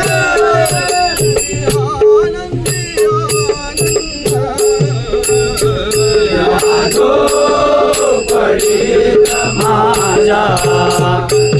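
Marathi bhajan music in raag Bhairavi: sharp, ringing percussion strokes and a low drum pattern keep the beat over a held drone note, while a gliding melodic line plays above.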